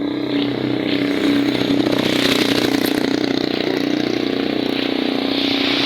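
A small vehicle engine running nearby at a steady, even pitch, like a motorcycle idling.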